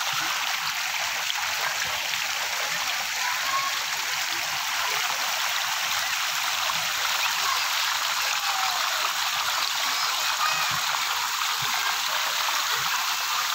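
Steady, unbroken rush of falling and splashing water from the pool's play fountains, with faint distant voices calling.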